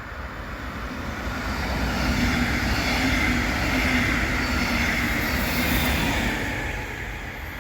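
Passenger train passing by, its rumble and rail noise growing to the loudest point in the middle and fading toward the end.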